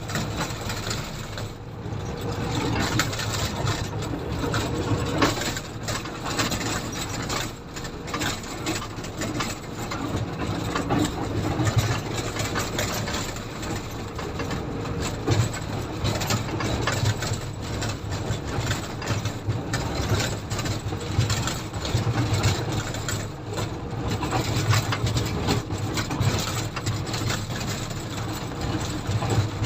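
Komatsu motor grader's diesel engine running steadily, with frequent short rattles and knocks throughout.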